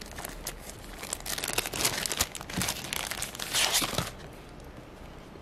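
A thin clear plastic bag crinkling and crackling as hands open it and handle the papers inside. The crinkling comes in irregular loud spells starting about a second in and stops about four seconds in.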